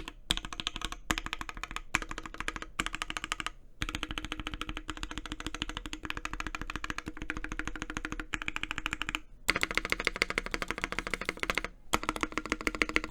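Fast typing on a Velocifire S58 60% keyboard with lubed Mauve linear switches, burger-mounted on rubber O-rings: a dense stream of keystroke clacks, broken by a few short pauses. The typing still sounds hollow, from the empty space under the PCB.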